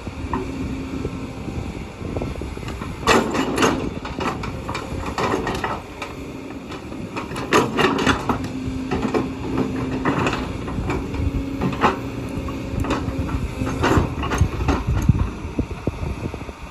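Kobelco hydraulic excavator working: the engine runs steadily under a stream of irregular clanks and knocks, loudest at about three seconds in, around eight and ten seconds, and again near the end.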